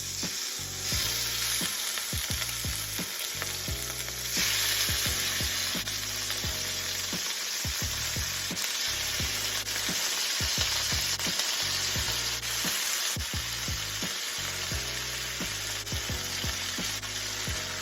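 Thin slices of marinated rib-eye steak sizzling in hot oil in a wok: a steady frying hiss that starts under a second in and grows louder about four seconds in.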